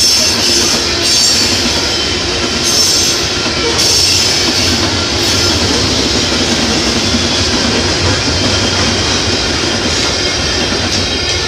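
Freight train of hopper cars rolling past, a steady rumble of wheels on rail with clicks over the joints. A high wheel squeal rises and fades a few times in the first half.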